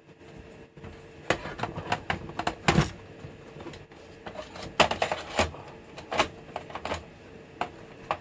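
Irregular clusters of sharp metal clicks, knocks and scrapes as a drive is pushed and seated into the drive bay of an opened Compaq Prolinea 4/25S desktop's steel case.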